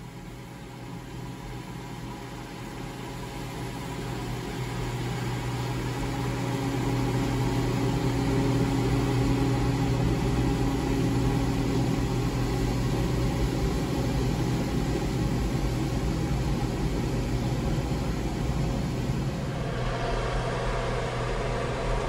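Engine running steadily with a low hum, growing louder over the first several seconds and then holding steady.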